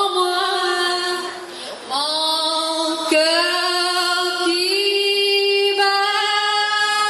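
A woman singing unaccompanied into a microphone: a slow melody of long held notes that slide between pitches, one note held for about two and a half seconds in the second half.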